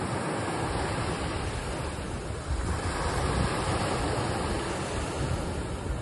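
Ocean surf washing onto a sandy beach: a steady rush of breaking waves that swells a little around the middle.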